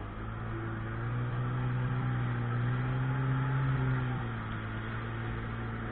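Sea-Doo personal watercraft engine throttled up from a slow pace, running steadily with the pitch creeping up, then eased back about four seconds in to a lower steady speed.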